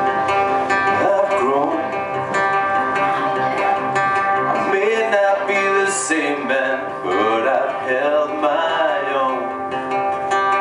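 A man singing a song live to his own strummed acoustic guitar, played through a PA. The guitar rings throughout, and the voice sings in phrases from about a second in until shortly before the end.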